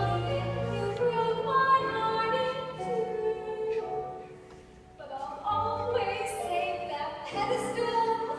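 Musical theatre song: a singer holding long, pitched notes over instrumental accompaniment, with a brief lull about four seconds in.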